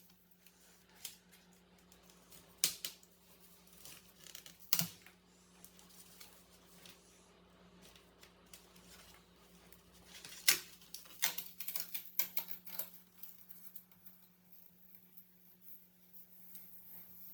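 Cardboard box and plastic packaging being handled and pulled open: scattered clicks, taps and rustles, busiest from about 10 to 13 seconds in, over a faint steady low hum.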